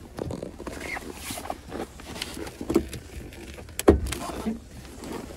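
Rustling and small knocks of someone moving in a car's driver's seat, then one sharp clunk about four seconds in as the bonnet release lever is pulled and the hood latch pops.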